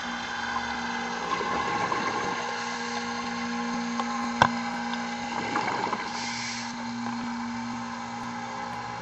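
Scuba diver's regulator breathing underwater: gurgling bursts of exhaled bubbles a few seconds apart and a short hiss of inhaling, over a steady machine hum, with one sharp click about four and a half seconds in.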